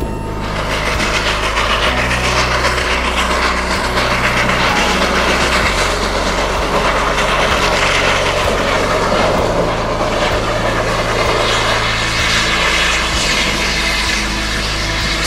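Rotary snowplow train blasting through deep snow: a loud, steady roar of machinery and thrown snow that swells in during the first second.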